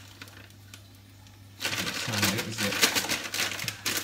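Pieces of pulled Oumph dropping from a pouch into a frying pan of hot oil and sizzling, starting suddenly about one and a half seconds in and crackling with many small spits: the oil is hot enough to fry.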